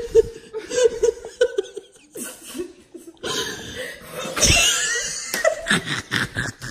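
Women laughing, in quick repeated bursts for the first two seconds, then looser laughter.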